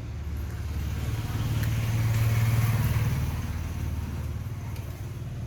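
A motor vehicle engine passing close by, growing louder to a peak about two to three seconds in and then fading.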